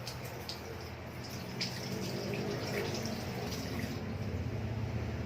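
Water running from a tap into a sink during handwashing, with a few light drips and splashes in the first two seconds, then a steadier, slightly louder flow.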